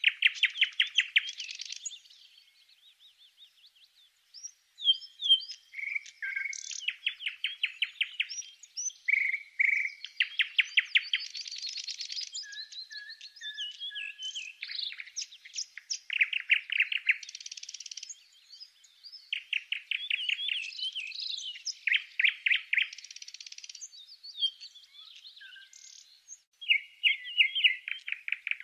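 Small songbirds singing: phrase after phrase of very rapid chirping trills mixed with short whistles, with a brief lull a few seconds in.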